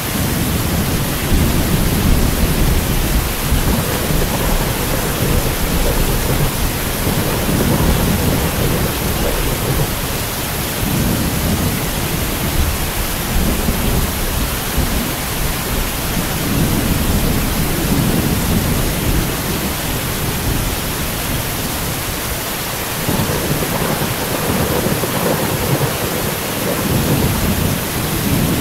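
Steady rain hissing under long rolling thunder. The rumble starts right at the beginning and swells and fades in waves, easing briefly about three-quarters of the way through before building again.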